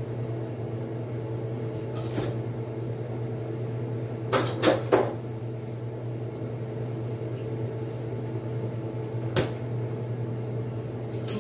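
Kitchen knocks and clicks over a steady low hum: a single knock about two seconds in, three sharp knocks close together about four to five seconds in, and a click just before the refrigerator door stands open near the end.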